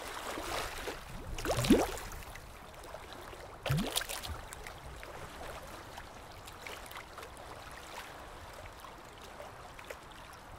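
Water plops, like drops falling into water: two quick blips that each glide upward in pitch, about two seconds apart, over a faint steady trickling wash.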